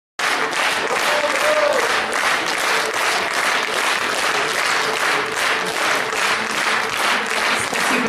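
Audience applauding steadily, many hands clapping.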